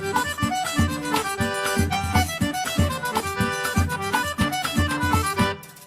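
Accordion-led festa junina dance music with a fiddle and a steady bass beat; it drops out briefly near the end.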